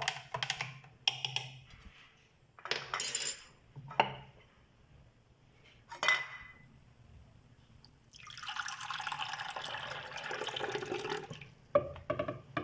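Lemon and mint juice stirred and tapped with a spoon in a glass jug, with sharp clinks of glass, one ringing briefly about six seconds in. About eight seconds in, the juice is poured into a glass in a steady stream for about three seconds.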